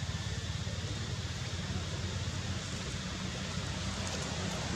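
Steady wind noise on the microphone: a low, fluttering rumble under an even hiss.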